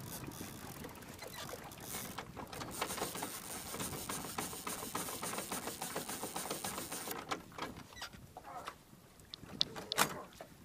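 Fishing reel ratcheting with rapid clicks as line pays off the spool, then cutting off abruptly about seven seconds in. Near the end come two sharp knocks on the aluminium boat.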